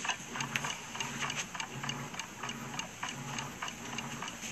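Someone rummaging through a wooden wardrobe: irregular rustling and light knocks and clicks, over a steady rhythmic ticking like a clock.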